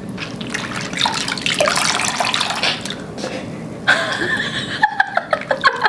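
Hands squeezing and kneading a lump of flour-and-water dough in a glass bowl of milky water, the water sloshing and splashing unevenly: the dough is being washed to rinse the starch out and leave the gluten for seitan.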